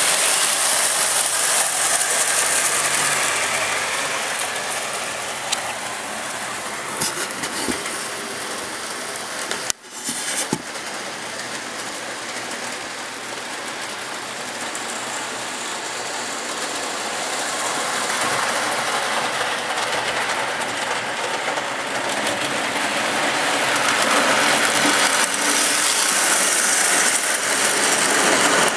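Rebuilt Lionel 2-4-2 Scout O-gauge toy steam locomotive and tender running on three-rail track. The sound is a steady mechanical rattle, louder when the train is close at the start and again near the end, with a brief dip about ten seconds in.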